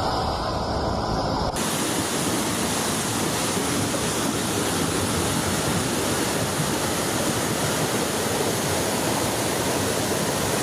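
A low rumble cuts abruptly, about one and a half seconds in, to a loud, steady rushing noise with no tones, like heavy water pouring.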